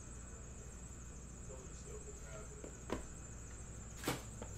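Two sharp plastic clicks, the louder one near the end, as a card in a clear plastic case is set aside on the table, over a steady faint high-pitched whine and low hum.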